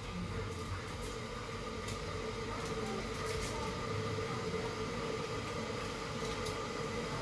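Steady rushing hum with a droning tone from a gas stove heating an empty wok, with a few faint ticks scattered through it.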